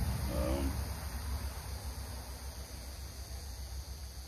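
Steady, high insect chirring over a low rumble, with a brief wavering tone about half a second in.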